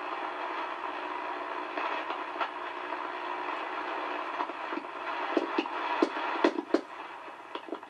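Hallicrafters SX-100 shortwave receiver's speaker hissing with static and a few steady whistling tones as the tuning is turned, then a run of sharp pops and crackles from about five seconds in.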